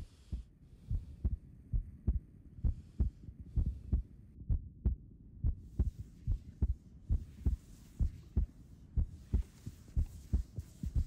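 Pointe shoes knocking on a studio floor as a dancer steps on pointe: a run of dull knocks, about two or three a second and unevenly spaced, over a low steady hum.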